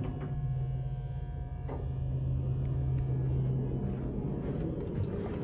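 Hydraulic elevator's pump motor humming steadily as the car travels up. The hum dies away about four and a half seconds in as the car comes to a stop, and a faint thump follows.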